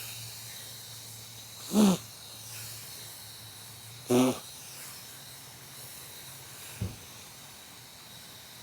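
Two short, low grunts about two seconds apart, the first falling in pitch, over a faint steady hum, with a small tap near the end.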